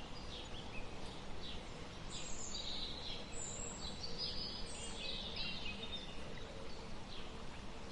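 Outdoor ambience of birds chirping: scattered short high calls, some in quick little runs, over a faint steady background hiss.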